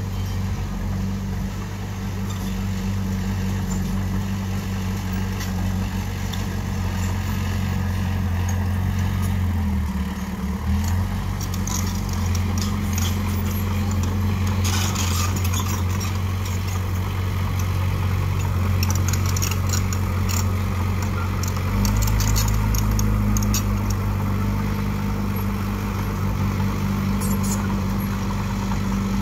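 Small crawler bulldozer's diesel engine running steadily under load, its note dipping briefly about ten seconds in and going deeper and heavier a little past two-thirds of the way through. Metallic clanks and rattles come in bursts through the middle.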